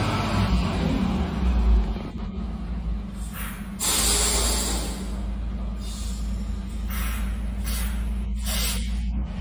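Diesel engine of a heavy semi-trailer truck running slowly and steadily as it creeps through a tight turn, with several short hisses in the second half.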